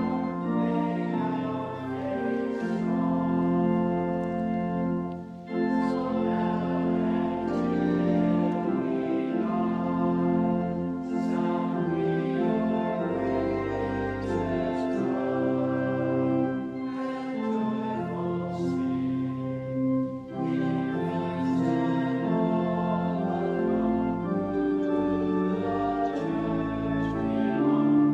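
Organ music: a slow piece in held chords that change every second or so, with brief breaks between phrases about five seconds in and again around twenty seconds.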